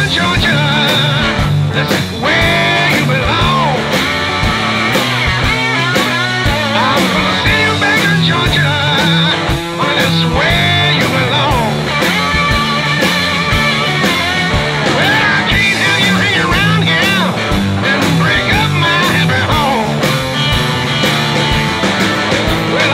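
Rock music soundtrack with guitar over a steady drum beat.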